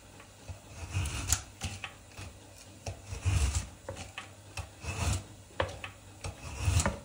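Hand-operated, spring-fed frozen-meat slicer shearing slices off a frozen meat roll: about four slicing strokes a second and a half to two seconds apart, each a scrape of the blade through the hard meat with a low knock.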